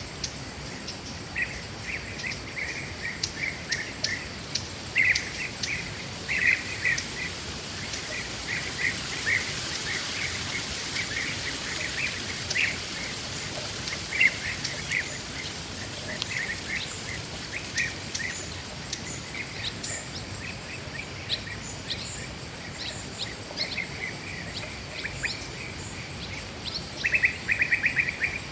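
Forest birds chirping: short, repeated calls throughout, with a quicker, louder run of chirps near the end, over a steady background hiss.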